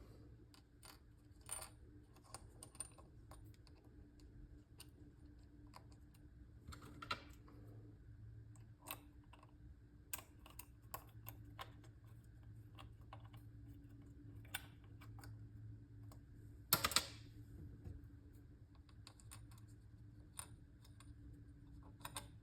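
Faint, irregular small clicks and taps of a hand driver and screws against the plastic shift-knob assembly as the screws are driven back in. The two sharper clicks come about seven seconds in and near seventeen seconds, over a faint steady low hum.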